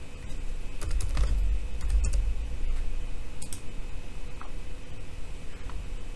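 Computer keyboard: a handful of separate keystroke clicks, most of them in the first half. A low bump or rumble sits under the first clicks.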